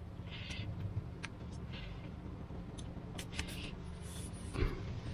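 Hands handling and smoothing a thin sheet of Depron foam on a table: a few short faint rustles and light clicks, the loudest a brief rustle near the end, over a low steady hum.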